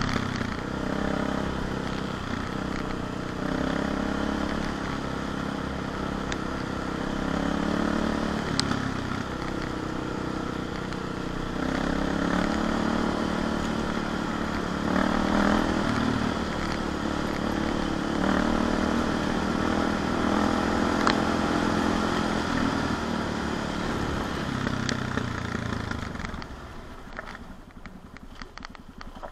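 CCM 644 R30's single-cylinder four-stroke engine running as the bike is ridden slowly along a rough lane, its note rising and falling with the throttle. Near the end it falls away and quietens as the bike slows.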